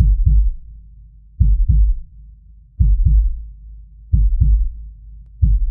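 Heartbeat sound effect: slow, low lub-dub double thumps, five beats about one and a half seconds apart.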